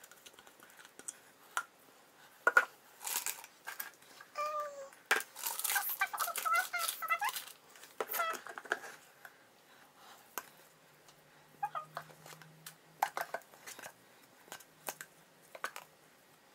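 Clear plastic piping bag crinkling and rustling as it is handled and filled with soap frosting, with knocks and scrapes of plastic jugs on the counter. A few short high-pitched squeaks come midway.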